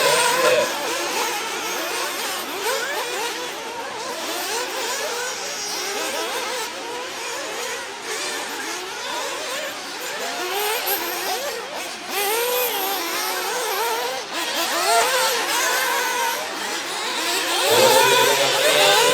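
Several 1/8-scale nitro buggies' small two-stroke glow engines screaming around the track together, their pitches constantly rising and falling as the cars accelerate and brake. A louder, lower engine note comes in near the end.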